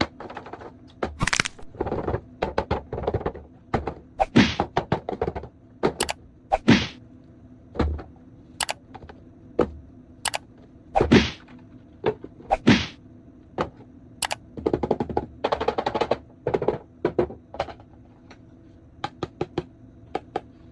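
Toy packaging and plastic toy parts being handled: irregular clicks, knocks and short rustles.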